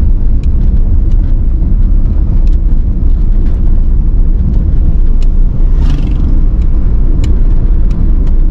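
Car driving along a rough village road, heard from inside the cabin: a loud, steady low rumble of engine and tyres, with scattered small clicks and rattles and a brief hiss about six seconds in.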